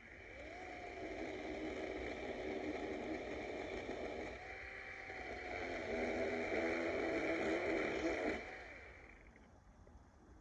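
DeWalt 20V battery chainsaw's electric motor whining up to speed and cutting wood, easing off and picking up again about four seconds in. It is loudest near the end of the cut, then the trigger is released just past eight seconds and the motor winds down.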